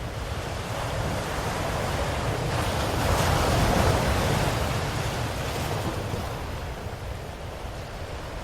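Ocean waves breaking on a shore: one wave swells about two and a half seconds in, peaks and then washes out, over a steady low rumble of surf.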